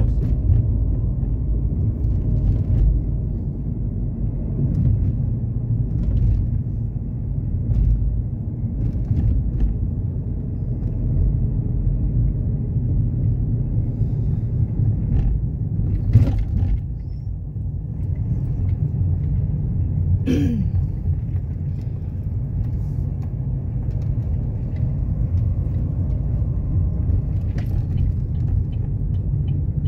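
Steady low rumble of a car driving, its engine and tyres heard from inside the cabin. There is a single sharp knock about halfway through, and a brief sound falling in pitch a few seconds later.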